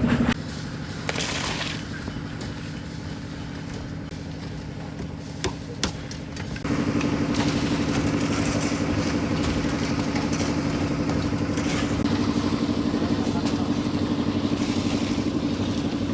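An engine running steadily with a fast, even throb. It is quieter for the first several seconds, with a couple of sharp knocks, then grows louder about seven seconds in and stays there.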